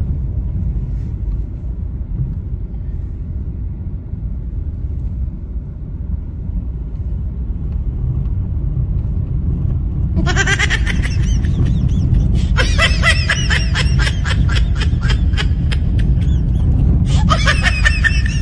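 Steady road and engine rumble inside a moving car's cabin. From about ten seconds in, laughter comes over it in three stretches: a short burst, a longer run of quick repeated "ha" sounds, and another short burst near the end.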